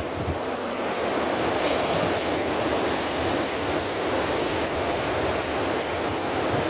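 Ocean surf rushing steadily, with gusts of wind noise on the microphone.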